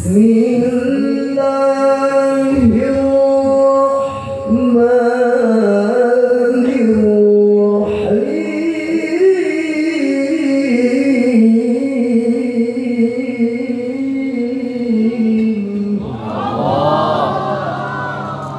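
A male qari reciting the Quran in the melodic tilawah style, holding long, ornamented notes through one drawn-out phrase.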